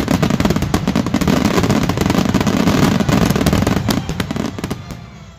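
Aerial fireworks going off in a dense barrage: many rapid bangs and crackles over a continuous rumble, fading away near the end.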